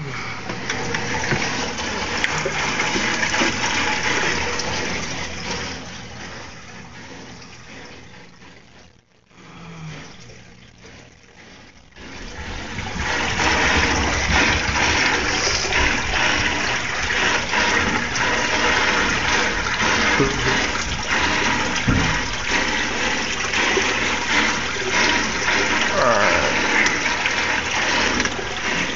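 Water rushing and splashing in a stingray tank: loud and steady, fading briefly about a third of the way in, then loud again.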